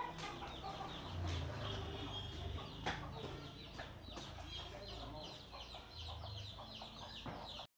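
Chickens clucking, with a few sharp snaps of dry straw being broken and fed into a small wood-burning stove; the sound cuts off suddenly near the end.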